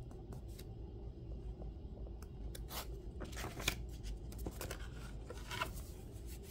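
Paper pages of a grimoire being handled and turned: a soft rustling with scattered crackles, a few of them sharper.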